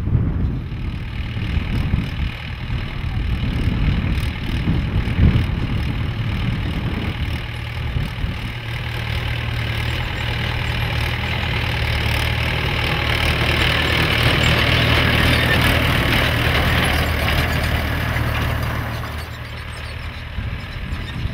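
Mahindra 475 DI diesel tractor engine running steadily while pulling a tined cultivator through dry stubble in ploughing. The sound gets quieter near the end.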